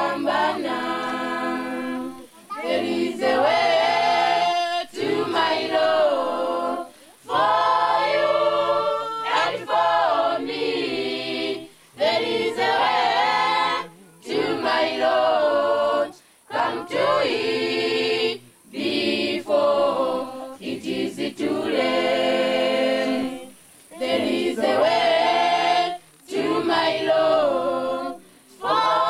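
Choir singing, in phrases of about two seconds broken by short pauses.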